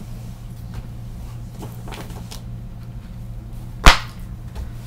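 Cloth rag wiping spilled ink off a nonstick craft sheet, a few faint scrubbing strokes, then a single sharp knock about four seconds in.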